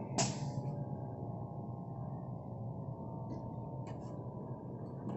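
Scania P310 fire truck's diesel engine idling with the cab tilted up, a steady low hum. A sharp metallic clink rings briefly about a quarter second in, and two lighter clicks follow near the end.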